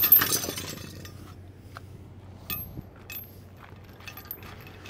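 Metal chain links and a steel weight distribution spring bar clinking as they are picked up, loudest right at the start, followed by a few scattered light clinks.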